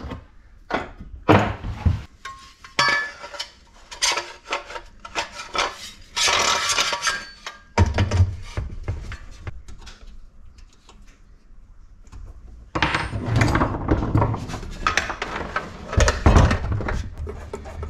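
Metal parts of a King Canada benchtop drill press clanking and knocking as it is assembled on a wooden workbench: the head and table slid onto the steel column and the base shifted on the bench. It comes as a run of separate knocks with a quieter pause about midway.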